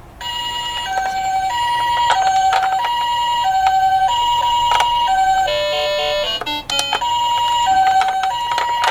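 Two-tone hi-lo ambulance siren of the Japanese 'pee-po' kind, alternating a high and a low tone about every two-thirds of a second. About halfway through it breaks briefly into a run of short stepped electronic tones, then resumes, with a few sharp clicks scattered over it.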